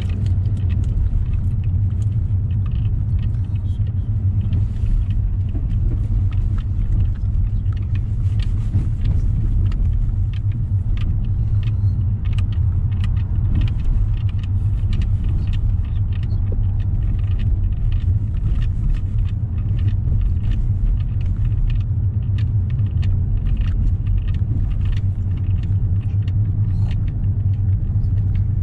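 Car driving on city streets: a steady low rumble of road and engine noise, with frequent small clicks and rattles throughout.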